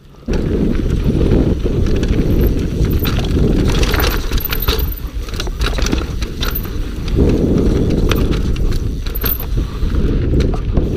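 Scott Gambler downhill mountain bike ridden fast over a rough trail of roots and stones: chain slap, rattling and knocks of the frame and tyres over bumps, over a steady rush of wind on the microphone. The noise starts abruptly just after the beginning, after a brief quieter moment.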